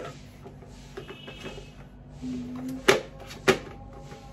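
Plastic parts of a multi-function vegetable cutter and salad spinner being handled and fitted together. There are light rattles and taps, then two sharp plastic clicks about half a second apart, about three seconds in, as the pieces snap into place.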